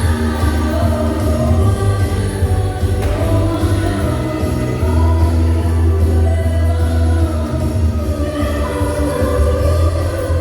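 Background music: a Christmas-style song with singing and jingling bells over a steady, heavy bass.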